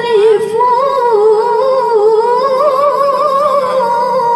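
A young girl's voice chanting Quran recitation (tilawah), drawing out one long vowel in a melismatic run with wavering, ornamented turns of pitch.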